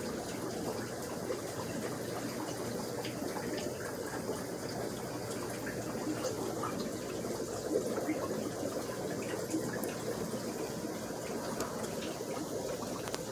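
Aquarium water circulation: a steady trickle and bubble of water from the tanks' filters.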